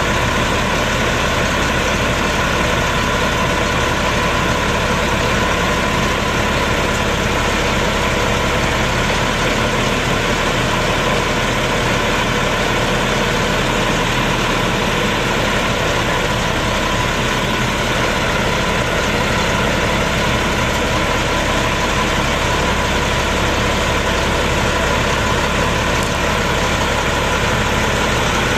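2005 Ford F-650 dump truck's diesel engine idling steadily while the raised dump bed is lowered.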